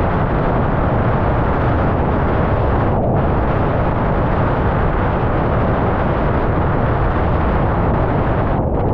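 Loud, steady wind noise buffeting a GoPro Hero 10's microphone on a windsurf rig sailing at speed, mixed with the rush of water under the board. The hiss thins briefly about three seconds in.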